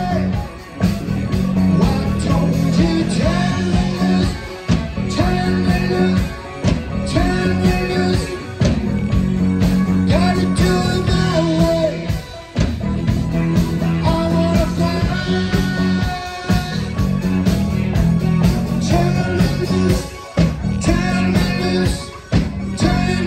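Live rock band playing a song with a singer, heard over the PA.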